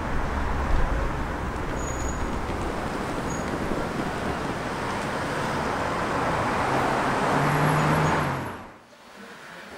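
City street traffic noise, steady, with a vehicle engine growing louder shortly before the sound drops away suddenly near the end.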